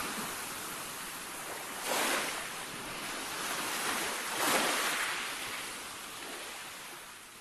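A rushing noise that swells twice, about two seconds and four and a half seconds in, then slowly fades away. It is a surf-like whoosh in the song's closing moments.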